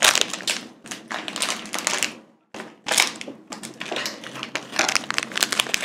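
Clear plastic candy bag crinkling and crackling as it is handled, a quick run of crackles and clicks broken by a couple of short pauses.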